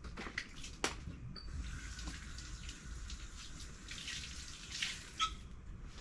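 Water running and splashing, with a few light clicks and knocks and a couple of brief high chirps.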